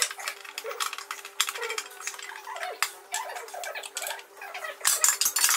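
Packaging crackling and rustling as bench parts are unwrapped and handled, with small clinks and knocks; loudest near the end.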